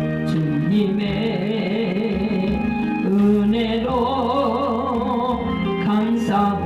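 Music: a singing voice with wide vibrato over instrumental accompaniment, holding long notes.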